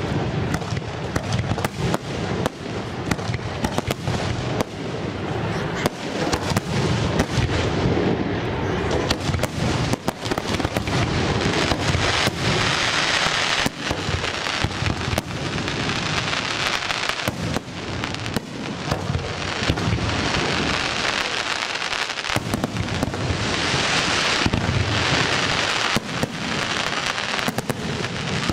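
Fireworks display: aerial shells bursting in rapid, overlapping succession, a dense run of bangs throughout. A hissing crackle swells between them about halfway through and again near the end.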